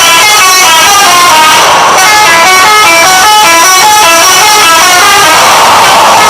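A Pandawa 87 bus's telolet horn, a multi-tone air horn, playing a loud, fast melody of short notes that jump in pitch several times a second.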